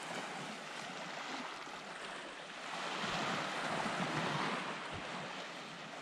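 Small sea waves washing against the shore, a steady wash that swells a little about halfway through.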